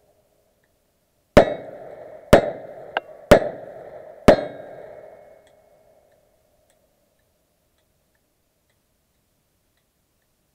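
Four revolver shots about a second apart, each followed by the ring of a steel target being hit. A smaller sharp click comes between the second and third shot.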